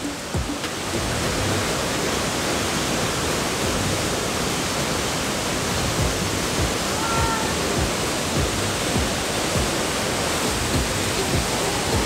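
Steady, dense rush of a very tall waterfall heard close to its foot, with heavy spray falling.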